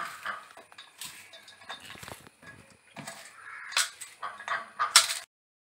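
A hand mixes shredded raw cabbage and sliced onions in a metal bowl: irregular crisp rustling, with the bowl knocking and clinking now and then. The sharpest knock comes near the end, and then the sound cuts off suddenly.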